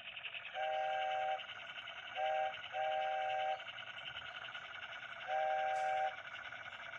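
Steam-train sound effect from a children's sound book: steady rhythmic chugging with four steam-whistle toots over it, one long, a short one and a longer one around two to three seconds in, and another long one near six seconds. The sound is thin, lacking deep bass.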